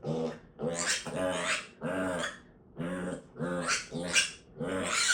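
Pig giving a quick string of about eight short, harsh grunting calls, each rising then falling in pitch.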